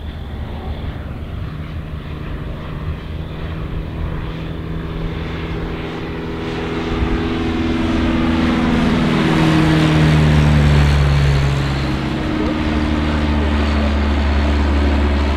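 Grob G109B motor glider flying past under engine power. Its propeller engine drone grows louder, is loudest about ten seconds in, and drops in pitch as the aircraft goes by.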